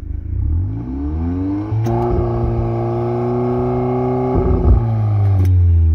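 VW Golf 8 R's 2.0-litre turbocharged four-cylinder, through an Akrapovic exhaust with the flap closed in comfort mode, revved from idle and held steady at the test speed of about 3750 rpm for a stationary noise measurement, then let fall back toward idle near the end. At 50 cm it reads about 87 to 90 dB, above the 84 dB entered in the car's papers.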